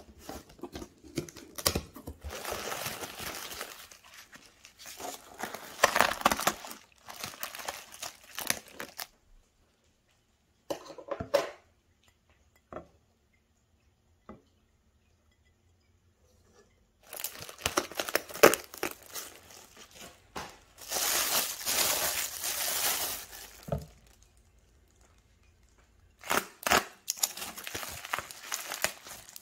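Plastic packing wrap and a cardboard box crinkling and rustling as plates are unpacked by hand. The sound comes in bursts: a long quiet stretch in the middle holds only a few brief knocks, and the rustling resumes for several seconds before a last short burst near the end.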